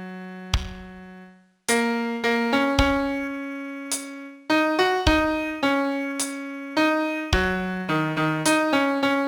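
Piano playing a slow melody one note at a time, each note struck and left to ring and fade. There is a brief break about a second and a half in, then the playing resumes.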